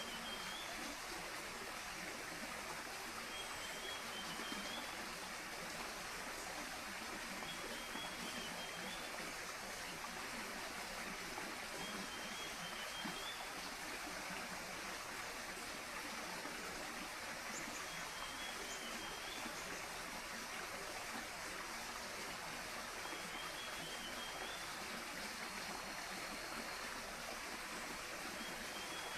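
Tropical rainforest ambience: water rushing steadily, with a short, high, warbling call repeated about every four to five seconds.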